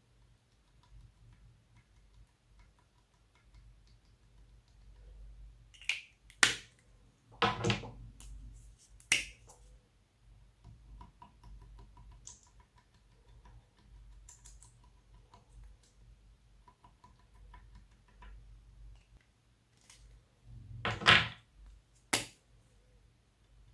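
Glossy slime being worked by hand. It gives a cluster of sharp wet pops and clicks about six to nine seconds in, and two more near the end, with faint soft clicking between.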